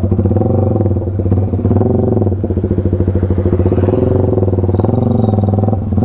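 Yamaha sport motorcycle's engine and exhaust running steadily while the bike is ridden along, the pitch drifting slightly up and down.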